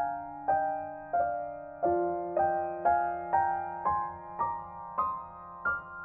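Background music: a keyboard plays single notes about twice a second, each fading away, over held low notes that shift to a new chord about two seconds in.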